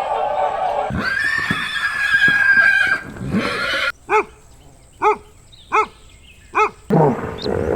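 Zebra calling: a long, high, whinny-like call, then four short barking yelps about a second apart.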